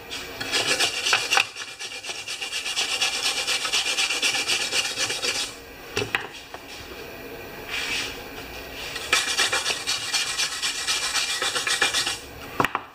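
Wire-feed welder arc crackling in three runs as a weld bead is laid along a crack in a snowblower's transmission housing: a long run of about five seconds, a brief blip midway, and another run of about three seconds near the end.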